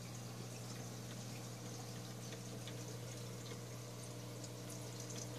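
Aquarium water trickling and bubbling over a steady low hum, the sound of the tank's filtration running.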